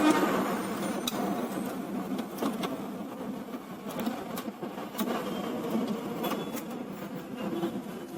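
Scattered light clicks and knocks of printer parts being handled during reassembly, over a steady buzzing hum.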